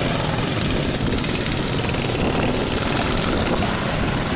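Engines of racing lawn mowers running hard as the mowers pass close by on the track.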